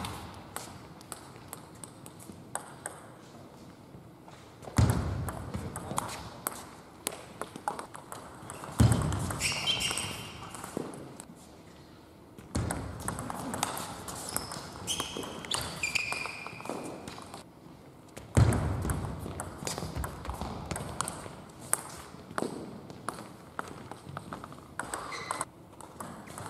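Table tennis rally practice: quick, repeated clicks of a celluloid or plastic ball off rubber paddles and the table top, echoing in a large hall. A few louder thuds come every several seconds, and brief high squeaks are heard about ten and sixteen seconds in.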